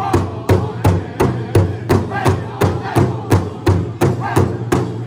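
Powwow drum group singing an intertribal song around a big drum, the drummers striking it together in a steady beat of a little under three strokes a second while their voices carry the melody between the strokes.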